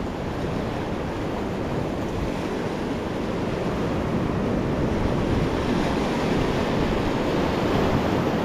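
Ocean waves washing in over a shallow rock reef shelf: a steady rushing, fizzing surf wash that swells a little louder after about the middle.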